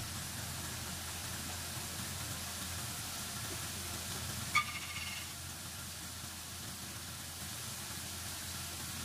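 Pork pieces starting to fry gently in fat in a nonstick pan: a steady low hiss over a constant hum, with one short ringing clink about halfway through.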